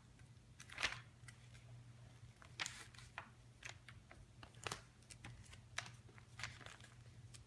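A sheet of paper being folded and creased by hand: faint, scattered rustles and crinkles, over a low steady hum.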